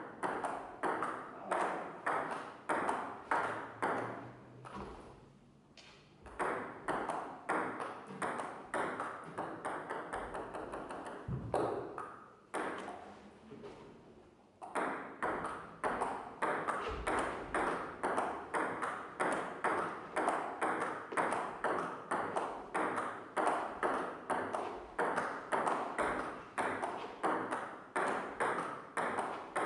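Table tennis rally: the celluloid ball clicking back and forth between paddles and table, about two hits a second. Play breaks off briefly twice, then runs on steadily through the second half.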